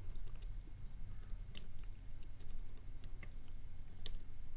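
Faint small metallic clicks and scrapes of a tubular lock pick working the pins of a cheap tubular lock, with two sharper ticks about a second and a half in and near the end.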